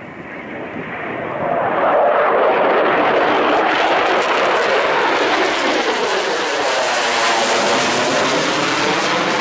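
Jet roar of an F-22 Raptor's twin Pratt & Whitney F119 afterburning turbofans during a tight turn. It builds over the first second or two, then holds loud and steady, with a sweeping, phasing quality as the jet moves overhead.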